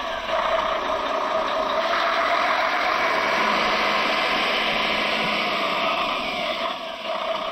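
Radio-controlled scale 6x6 truck's drivetrain driving steadily: a brushed 550 electric motor and a two-speed gearbox with gears whining and clattering. It eases off briefly about seven seconds in.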